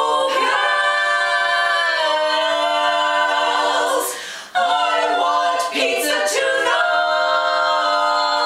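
Women's barbershop quartet singing a cappella in four-part harmony, holding long chords. There is a short break between phrases about four seconds in, then quicker notes and another long held chord near the end.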